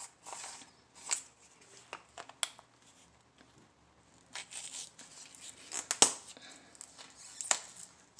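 A spice jar of oregano being opened by hand: irregular crackling with a few sharp clicks, the loudest about six seconds in.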